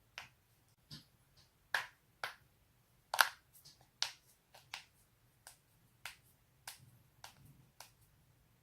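Neck and back joints cracking: about fifteen sharp pops at irregular intervals, the loudest about three seconds in.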